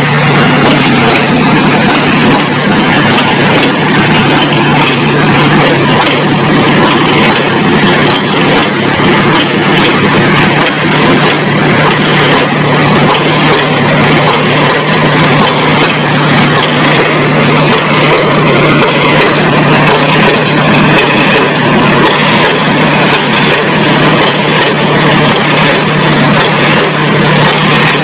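Dynapac combination road roller's engine running steadily with a constant low hum as the roller drives slowly down the loading ramps off a flatbed truck.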